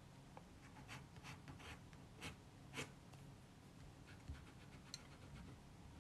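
Faint pencil sketching on paper: about half a dozen short, light strokes at uneven intervals, over a low steady hum.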